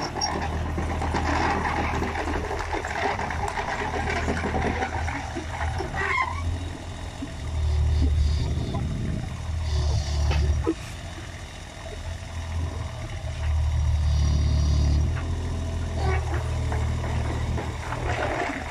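Kubota KX019 mini excavator's diesel engine running with its hydraulics working, a steady low drone that swells louder a few times as the arm takes the load of a lifted bulk bag.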